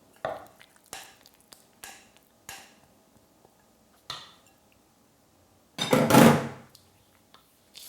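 Utensil knocking and scraping against a glass mixing bowl as wet cookie-dough ingredients are emptied into the dry ones: a run of light knocks, then a louder, longer scrape about six seconds in.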